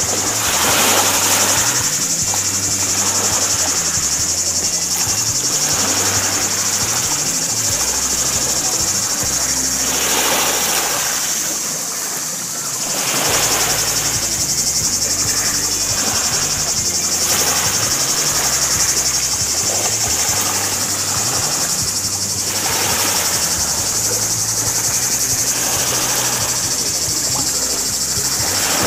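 A steady, high insect chorus shrills without a break over background music with a shifting bass line.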